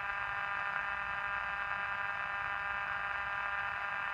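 Steady buzzing tone with many overtones from a Sony portable radio's speaker, tuned to the 1670 kHz maritime weather broadcast.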